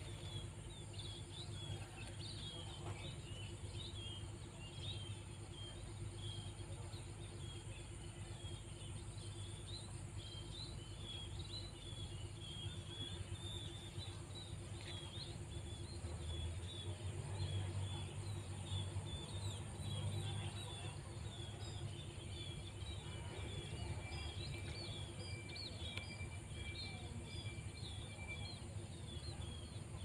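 Many small birds chirping and twittering in the trees, with a steady high insect buzz underneath and a low rumble of wind or handling noise.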